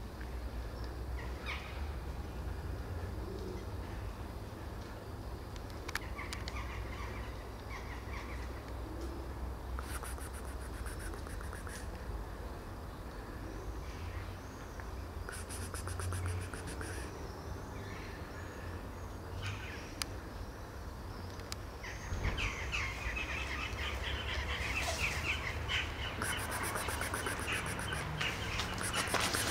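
Small birds chirping on and off over a low steady rumble, the chirping getting busier in the last several seconds.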